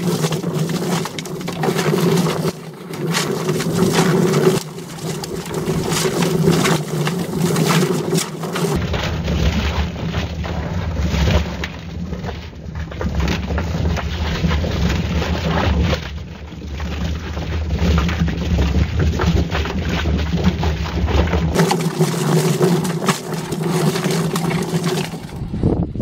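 Homemade drum-type chicken plucker running: its electric motor spins the bottom plate with a steady hum while the chicken tumbles and knocks against the rubber plucking fingers. The machine stops near the end.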